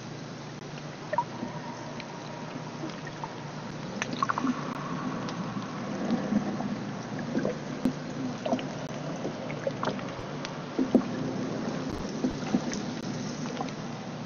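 Underwater sound picked up by a submerged hydrophone in the sea: a steady low hum under a wash of water noise, with scattered sharp clicks and pops and a few short high chirps.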